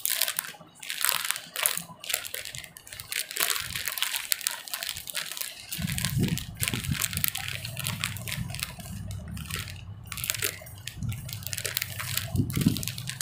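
Clear plastic packaging bag crinkling and rustling in the hands as a garment is taken out of it. A low rumble joins about halfway through.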